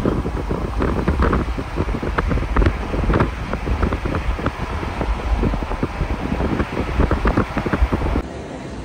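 Wind buffeting the microphone: a heavy, uneven low rumble mixed with many irregular small knocks and crackles, which cuts off abruptly near the end.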